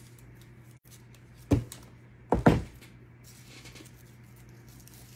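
Sharp knocks of craft tools and materials being handled on a worktable: one about a second and a half in, then two close together about a second later, over a low steady hum.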